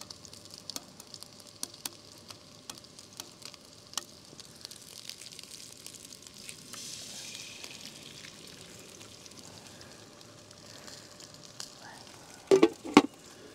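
Sausages and a pancake sizzling in a frying pan, a steady crackle with scattered small pops; about seven seconds in the sizzle brightens as an egg is cracked into the hot pan. Near the end come two loud clanks from the pan's glass lid being handled.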